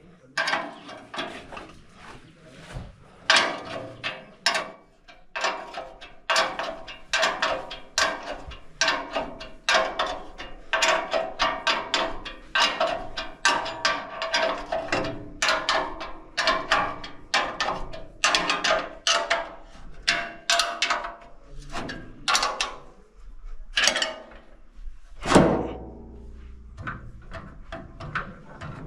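Hand ratchet wrench tightening nuts: a long steady run of short ratcheting strokes, about two a second, with one louder knock near the end.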